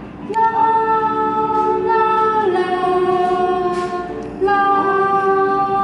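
A woman singing long held notes into a toy wireless karaoke microphone, along with a song it plays. The notes step lower about two and a half seconds in and come back louder a couple of seconds later.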